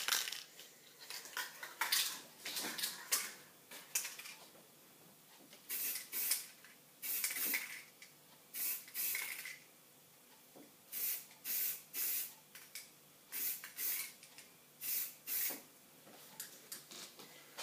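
Aerosol can of green gloss spray paint hissing in about a dozen short sprays, each under a second, from about six seconds in. The first few seconds hold smaller, irregular sounds as the can is shaken.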